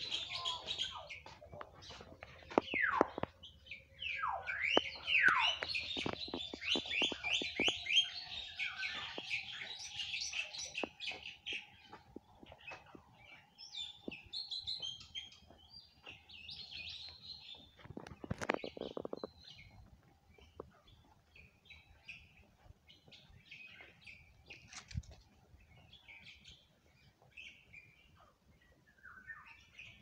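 Several aviary birds calling: sharp chirps and falling whistled sweeps, with a fast run of repeated chirps in the first third, then scattered calls that thin out toward the end. A faint steady tone runs underneath for much of it.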